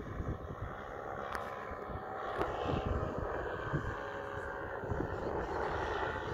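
Paramotor engine running steadily as it flies overhead, with wind rumbling on the microphone.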